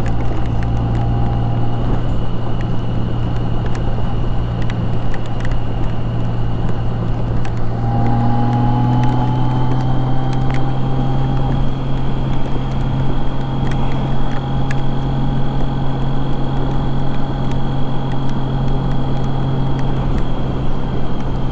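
Honda Gold Wing motorcycle cruising at highway speed: a steady engine drone with road noise. The engine note shifts slightly higher about eight seconds in.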